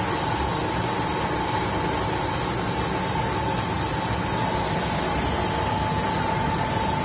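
Round stainless-steel vibrating sieve running while screening powder: a steady mechanical hum and rattle from its vibration motor, with a steady whine held throughout.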